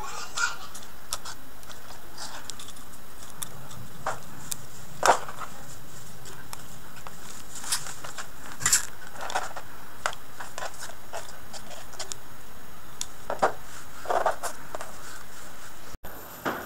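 Small plastic handling noises, scattered clicks and scrapes, as a white PVC pipe is handled and a small DC motor with its wires is pushed into it, over a steady hiss. The sharpest click comes about five seconds in.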